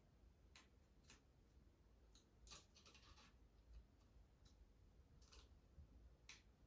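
Near silence with faint, scattered clicks and light ticks from small metal parts and tools being handled, including a brief rattling cluster about two and a half seconds in.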